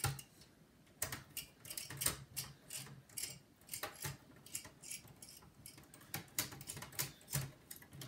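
Screwdriver working the CPU heatsink screws of a Dell Inspiron 640m laptop: an irregular run of small, sharp metallic clicks as the screws are loosened. The clicking is normal for these screws and not a sign of damage.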